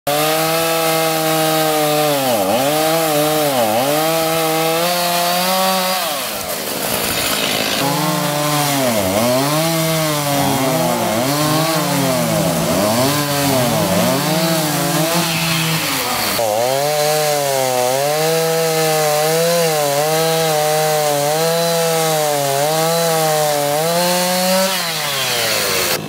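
Gas chainsaws running at high revs as they cut through fallen tree trunks and limbs. The engine pitch dips and recovers again and again as the chain bites into the wood and clears it.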